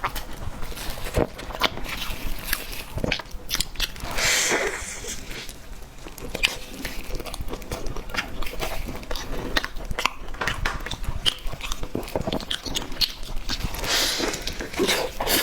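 Close-miked eating of cake: biting and chewing with many short wet mouth clicks and soft crunches, thickening into two denser spells about four seconds in and near the end.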